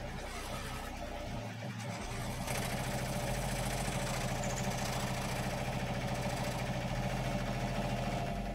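Electric scroll saw running steadily, its reciprocating blade cutting through a small piece of balsa wood; the sound steps up in level about two and a half seconds in and then holds.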